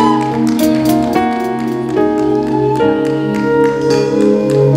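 Worship music with sustained chords that change about once a second.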